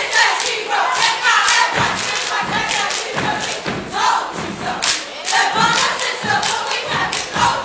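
Step team stepping: sharp stomps and hand claps in rhythm, with the steppers chanting and shouting together.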